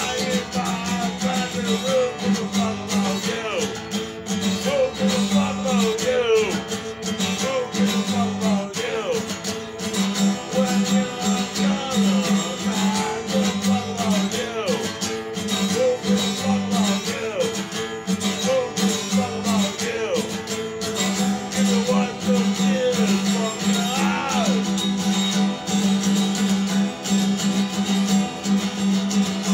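Acoustic guitar strummed steadily in a rhythmic pattern.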